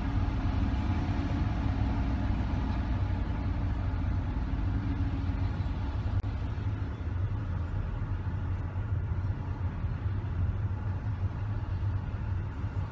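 Steady road noise inside a moving car's cabin: a low rumble of engine and tyres under an even hiss.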